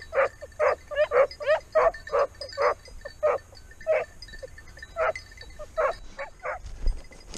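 Hunting hound barking in quick short barks, about two a second, some of them wavering in pitch: a dog giving tongue while working a hare. The barking stops shortly before the end.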